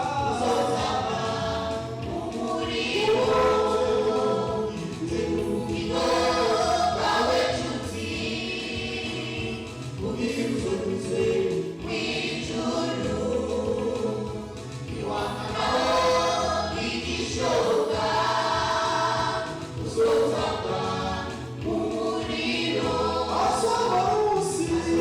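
Church choir singing a gospel hymn in phrases of a few seconds, with steady instrumental accompaniment beneath.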